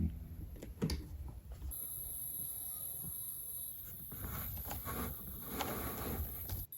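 Pet rats moving about, faint rustling and scuffling, with a sharp click about a second in and a few short soft bursts of noise near the end.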